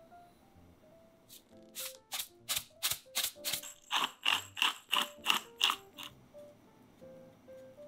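Hand-twisted pepper grinder grinding in two runs of short ratcheting strokes, about three a second, with a brief break between them.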